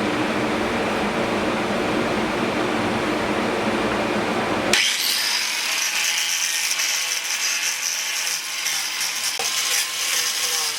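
Power tools working wood. A steady, lower-pitched machine hum cuts abruptly about halfway through to the higher, hissing grind of an angle grinder carving into the wood.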